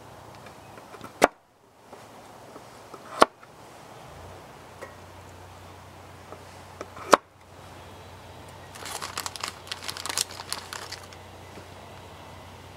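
A large knife cutting baby red potatoes on a pine board. The blade knocks sharply on the wood three times as it goes through, over the first seven seconds. After that comes a couple of seconds of quick crackling and rustling.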